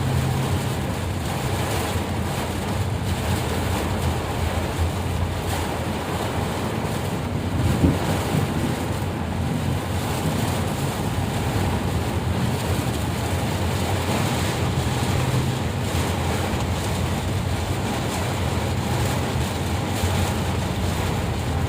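Heavy rain with wind buffeting the microphone: a steady, loud hiss, with a low engine drone underneath and one short knock about eight seconds in.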